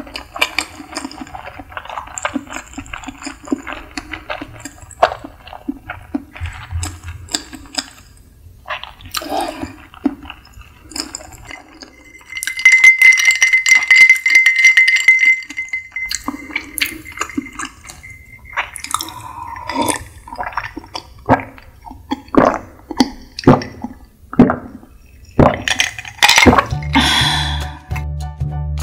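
Close-miked mouth sounds of someone chewing sushi, then loud gulping from a glass mug with the glass clinking. Music starts near the end.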